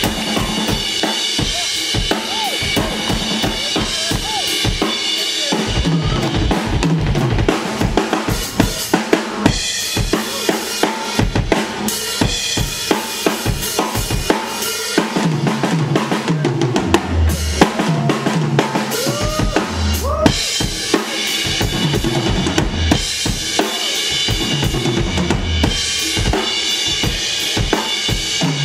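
Live blues band playing an instrumental passage: a drum kit keeping a steady beat on bass drum and snare under bass and electric guitars, with a lead guitar bending notes.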